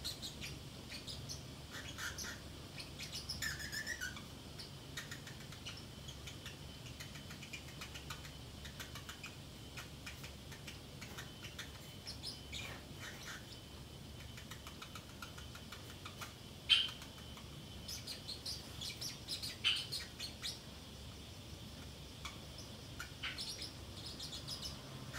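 Pacific parrotlet chattering to itself: scattered soft chirps and clicky twitters in short clusters, with one sharp, louder chirp a little past halfway.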